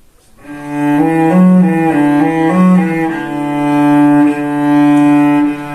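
Cello bowed in a slow, smooth legato warm-up exercise: it comes in about half a second in, moves through a few notes, then holds one long sustained note from about three seconds in, with bow changes that carry no accents or gaps.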